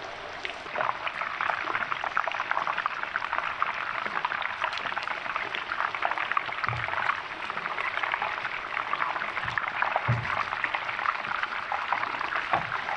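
Meatballs sizzling and crackling as they shallow-fry in hot oil in a stainless steel pan, a dense, steady crackle, with two soft low bumps midway through.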